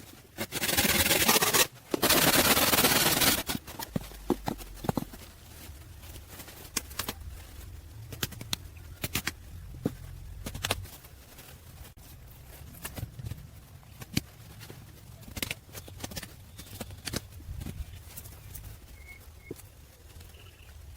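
Loud, even rushing noise for about the first three seconds, broken once by a short gap. Then comes a long run of irregular sharp knocks and taps over a low rumble.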